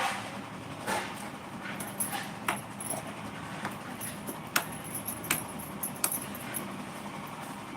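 Eating sounds: irregular short clicks and crunches, about a dozen, over a steady low hum.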